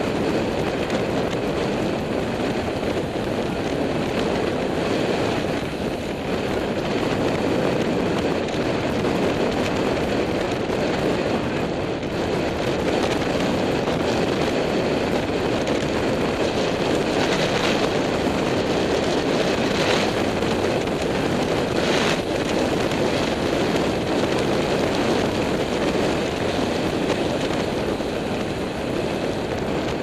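Steady wind rushing over the microphone of a camera mounted on a moving road bicycle.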